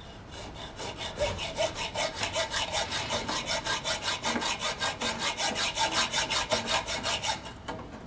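Hand hacksaw sawing through the metal of a faulty air conditioner fan motor, cutting it away from a seized propeller. Fast, even back-and-forth scraping strokes, several a second, stopping just before the end.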